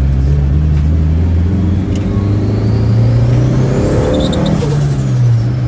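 Turbocharged car engine accelerating over a steady low drone; the engine note climbs and a high turbo whine rises for about two seconds, then falls away near the end.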